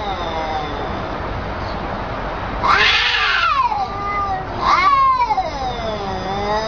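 Cats yowling in an aggressive face-off: long, wavering caterwauls that bend up and down in pitch, with a loud, harsh yowl about three seconds in and another loud one about five seconds in.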